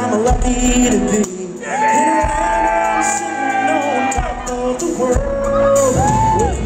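Live country band playing: kick drum and guitars under long held sung notes, with shouts from the audience, in a large hall.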